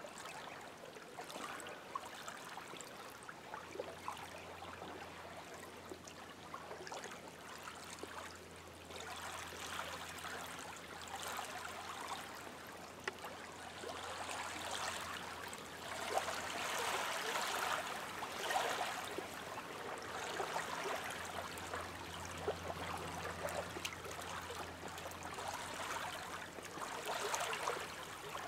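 Small wind-driven waves lapping and splashing against a lake shore, the rush swelling and ebbing in surges, with a faint low hum underneath.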